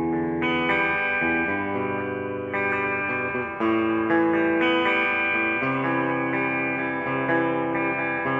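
Squier Sonic electric guitar, fitted with new pickups, played on a clean tone: ringing chords that change every second or two.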